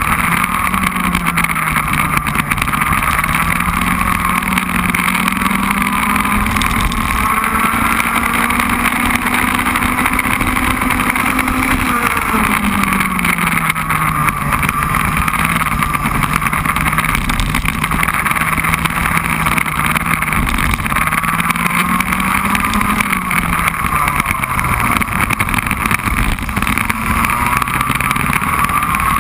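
Racing kart's two-stroke engine heard onboard, running hard with its pitch rising and falling as it accelerates and lifts for corners. A long, steady climb in pitch ends in a sharp drop about twelve seconds in, and another rise ends in a drop near the three-quarter mark.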